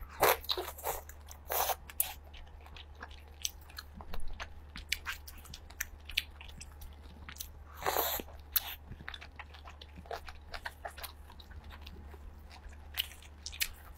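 Close-up eating sounds: a person biting and chewing seafood meat in garlic butter sauce, with many small wet mouth clicks and smacks. There is a louder burst about eight seconds in, all over a faint steady low hum.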